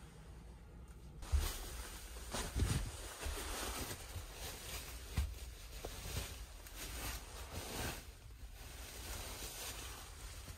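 Cloth rustling with a few soft thumps as a hand presses and moves a pillow on the bed sheets. It starts about a second in and tails off near the end, over a steady low hum.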